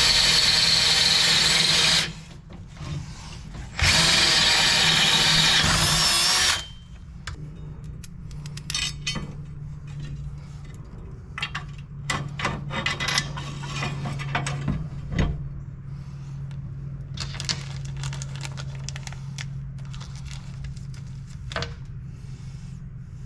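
Power tool running hard in two bursts of about two and three seconds, followed by light metal clinks and taps over a steady low hum.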